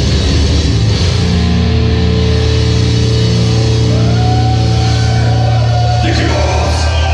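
Loud live death metal band playing: distorted guitars and bass over fast, pounding drums, with sustained notes from about a second in and a sharp hit near the end.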